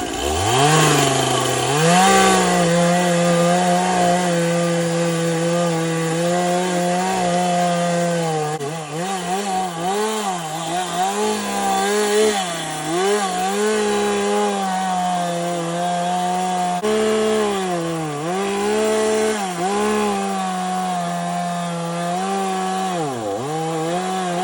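Chainsaw revving up to full throttle and cutting into a downed tree. Its steady high pitch dips and recovers again and again as the chain bogs down in the wood.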